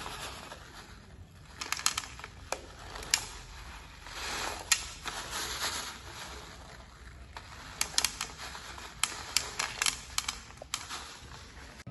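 A sheet of paper crackling and rustling as it is handled and tilted, with small black pellets rolling off it into a plastic tray. The result is an irregular string of sharp clicks and ticks, bunched near two seconds in, around eight seconds and again toward ten seconds, with a rougher rustle in the middle.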